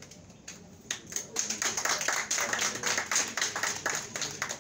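Audience applauding: a few scattered claps about a second in, then dense clapping that thins out near the end.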